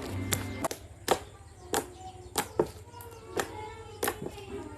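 Handmade glue-and-borax slime being squeezed and poked, giving sharp, irregular clicking pops about every half second, over faint background music.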